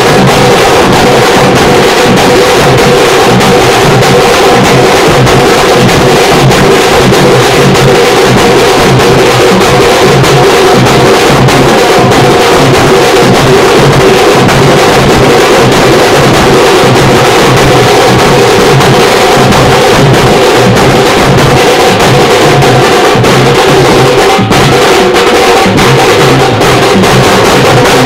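Loud drum-driven festival music: fast, dense drumming with steady held tones running over it.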